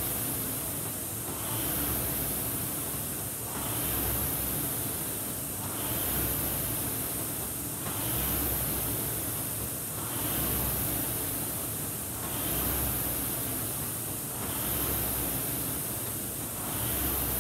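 Concept2 indoor rowing machine's air flywheel whooshing, surging with each drive in an even rhythm of about one stroke every two seconds, at a rate of 28 strokes a minute.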